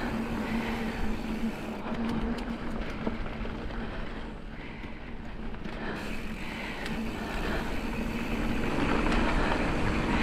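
Mountain bike rolling along a dirt singletrack: a steady rush of tyre noise on the packed dirt and wind on the microphone. A low steady hum fades in the middle and comes back, and there are a few light clicks and rattles a couple of seconds in.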